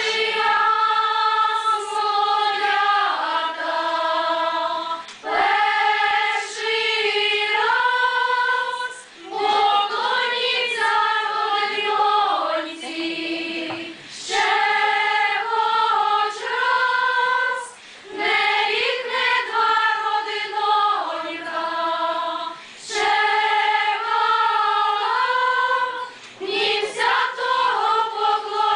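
Choir of mostly female voices singing a Ukrainian folk wedding song unaccompanied, in phrases of a few seconds each with short breaths between them.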